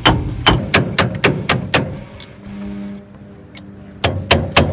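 Sharp ringing metal-on-metal strikes, about four a second, from work on a backhoe's hydraulic cylinder. They stop for about two seconds in the middle, then start again.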